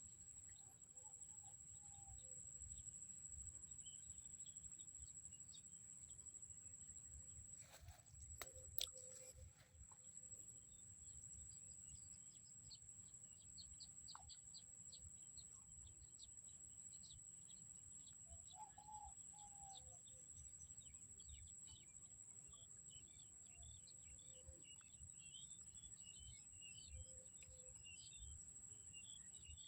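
Faint chirping and rapid trilling of small birds over a low rumble, with a couple of sharp knocks about eight to nine seconds in.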